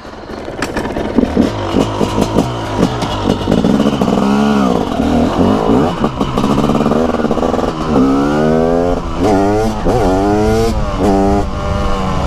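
TM SMR 300 supermoto's single-cylinder two-stroke engine pulling away and accelerating. The revs climb and drop back again and again, with several quick rising sweeps in the second half.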